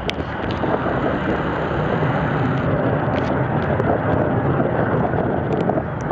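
Avro Vulcan delta-wing bomber flying past, its four Rolls-Royce Olympus jet engines giving a loud, steady roar that grows a little louder in the first second, with wind on the microphone.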